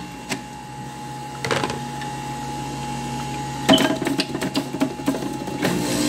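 Jack LaLanne's electric juicer running with a steady motor hum while juice pours from its spout. Sharper clattering comes about a second and a half in and again near four seconds.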